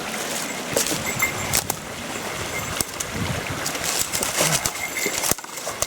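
Steady rush of a stream and waterfall, with a few sharp clicks or crunches scattered through it.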